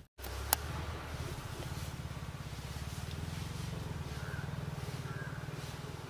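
Low, steady engine rumble with an even, fast pulse, with a single click about half a second in.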